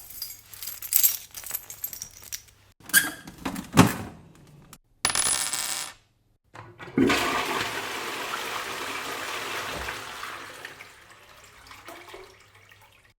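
A string of separate sound effects: light metallic clinks and jingles, like coins dropping, in the first four seconds; a short hiss about five seconds in; then a long rush of water, like a toilet flushing, that slowly fades over about six seconds.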